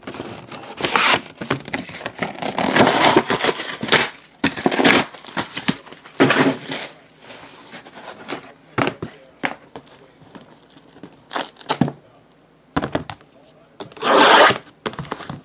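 Plastic shrink-wrap being torn and crinkled off a boxed photograph, with the cardboard box being handled. It comes as irregular bursts of rustling and tearing, busiest in the first half, then a quieter stretch of small clicks and one last loud burst near the end.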